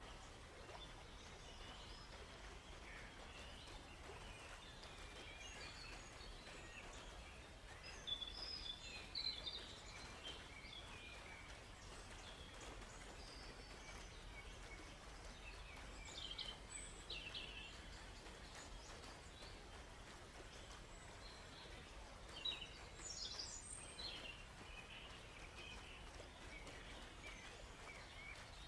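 Several birds chirping and calling in a forest, in scattered short phrases that come thicker about a third, halfway and three-quarters of the way through, over a faint steady background hush.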